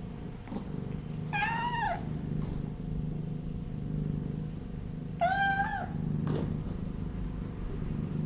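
A kitten meowing twice, about four seconds apart: two short, high-pitched meows that rise and fall. A steady low hum runs underneath.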